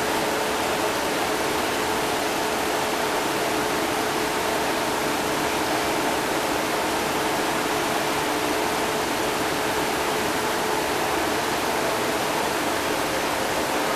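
Steady rushing hiss of an aquarium tank's aeration and water circulation, with a faint steady hum underneath.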